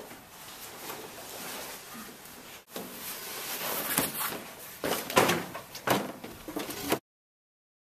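Rustling and several sharp knocks as a person moves about and sits down on a plastic classroom chair, loudest just before the end; the sound then cuts off to dead silence about seven seconds in.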